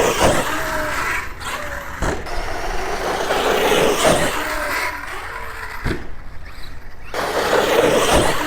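Electric RC monster truck running through wet, slushy snow: its motor whines and its tyres churn, with a few sharp knocks as it hits the snow, one near the end.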